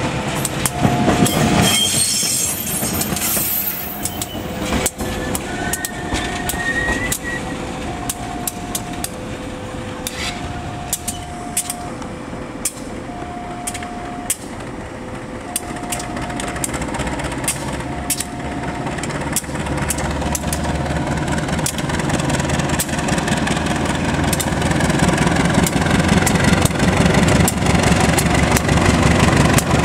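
A KAI GE diesel-electric locomotive moving slowly past, with sharp wheel clicks and a brief rising wheel squeal, its engine rumble growing louder over the last third. A level-crossing warning alternates two tones about once a second until roughly two-thirds through, then stops.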